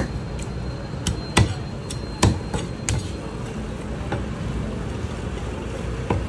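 Large fish-cutting knife striking a wooden log chopping block as it cuts through a fish: a string of sharp knocks, several in the first three seconds and one more a little later.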